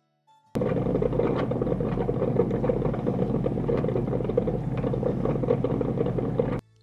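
Drip coffee maker brewing: a steady sputtering rush of noise with many small pops over a low hum. It starts suddenly about half a second in and cuts off suddenly near the end.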